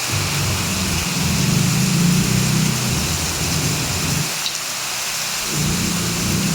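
Heavy rain falling with a steady hiss, under a low rumble that fades out about four seconds in and comes back near the end.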